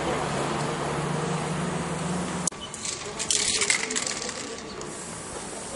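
Steady background noise with a low hum, which cuts off abruptly halfway through. A second later an aerosol spray-paint can is shaken, its mixing ball rattling in quick metallic clicks for about a second.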